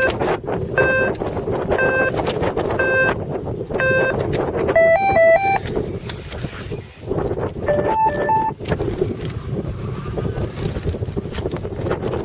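Wind buffeting the microphone, with electronic beeps from an F3F course timing and signalling system. Short single beeps come about once a second for the first four seconds, then short stepped groups of a few beeps of changing pitch come about five and eight seconds in.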